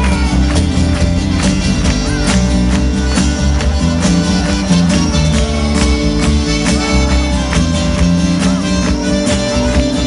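Live band playing an instrumental passage: strummed acoustic guitars and other instruments over a steady percussive beat.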